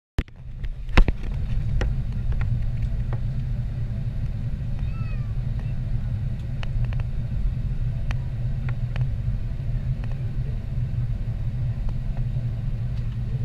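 Steady low rumble inside the passenger cabin of an Emirates Airbus A380-861 rolling on the ground, from its engines and wheels, with scattered small rattles. A sharp knock about a second in stands out above it.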